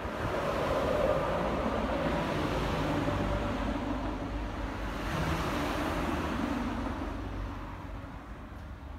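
A tram passing through the stop: a rising and falling rumble with a steady whine that swells from the start, holds for about seven seconds, then fades away.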